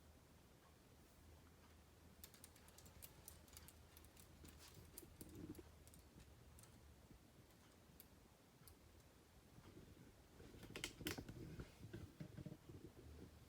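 Faint, scattered clicks and light rattling of plastic K'NEX pieces on a hand-spun model Paratrooper ride, with a louder cluster of clicks about eleven seconds in, over quiet room tone.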